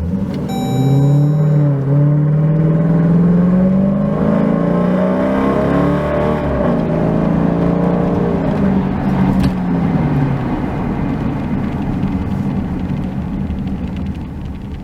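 2014 Dodge Durango's 5.7-litre Hemi V8 running through a Borla cat-back exhaust under acceleration: the revs climb over the first few seconds, hold, then drop away about ten seconds in, and the sound fades near the end.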